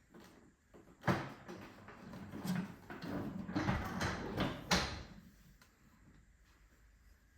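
Hands handling hard objects: a run of knocks, scrapes and rustles from about one to five seconds in, with the sharpest knocks near the start and near the end of the run.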